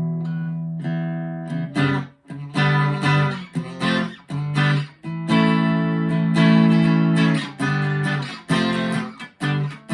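Harley Benton TE-52 Telecaster-style electric guitar on its bridge pickup, played through a Vox AV15 amplifier. A ringing chord fades out, then comes a rhythmic run of strummed chords, most cut short and one held for about two seconds.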